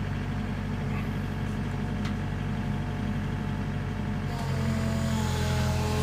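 Mini excavator's diesel engine running steadily. About four and a half seconds in, its note steps up and gets louder, and a thin higher whine joins it.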